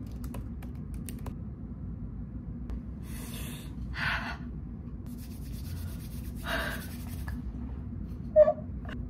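A young woman's excited gasps and breaths, then a short, loud squeal near the end, over a steady low hum.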